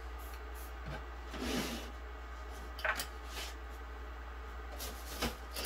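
Faint rustling and a few light clicks and taps of small objects being handled, over a steady low hum.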